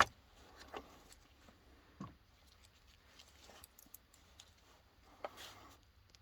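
Small tools and battery parts being handled on a workbench: a sharp click at the very start, then a few faint light taps and clicks.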